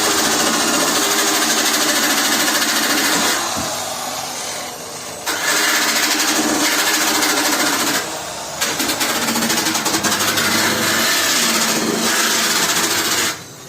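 Gas-shielded arc welding on a BMW car door: a loud, steady crackling hiss from the welding arc. It runs in stretches, fading for a second or two about three and a half seconds in, breaking off briefly about eight seconds in, and again near the end.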